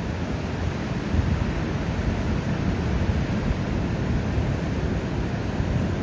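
Ocean surf washing on a beach: a steady rushing roar, heaviest in the low end, swelling slightly about a second in.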